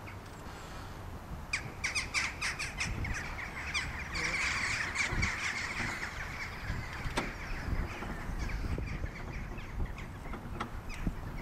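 Crows cawing: a flurry of short calls a couple of seconds in and a thicker cluster around the middle, over a low steady rumble.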